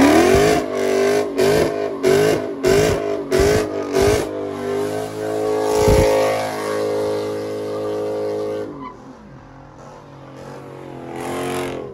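Dodge Challenger doing a burnout: the engine revs in quick pulses for the first few seconds, then holds high revs with tyres squealing and spinning. The sound drops off about nine seconds in as the car pulls away, then rises briefly again near the end.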